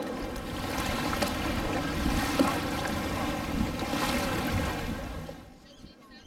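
Wind buffeting the microphone over small waves lapping in shallow water, a steady rushing noise with a low rumble that drops away abruptly about five seconds in.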